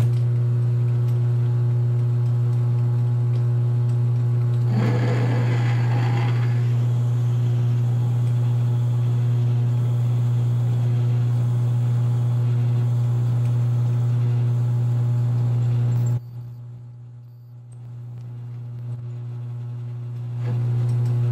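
Early-1950s Sheldon metal lathe running with a steady electric hum while a drill or reamer in the tailstock is fed through the bore of a gear. There is a brief burst of cutting noise about five seconds in. The hum drops away sharply about sixteen seconds in and comes back near the end.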